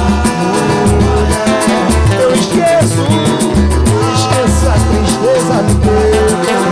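Live pagode (samba) band playing an instrumental passage: a bass line in held notes and a melody over steady, evenly spaced percussion strikes.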